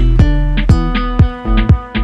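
Background music: plucked and strummed guitar over a steady beat, about two beats a second.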